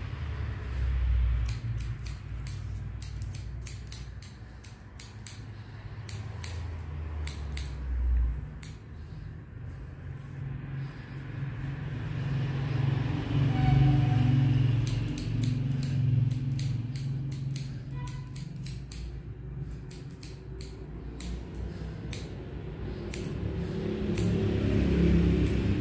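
Barber's scissors snipping hair lifted on a comb: runs of quick, sharp snips with short pauses between them, over a low rumble that swells and fades.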